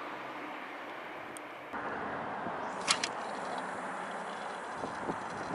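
Steady background hum of distant road traffic, then about three seconds in two quick sharp swishes as a long surf-casting rod is whipped through a cast.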